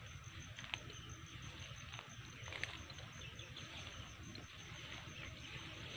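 Faint grassland ambience: an insect chirping in a high, evenly pulsing tone over a low rumble and a hiss of other insects. Two sharp clicks, one under a second in and one about halfway.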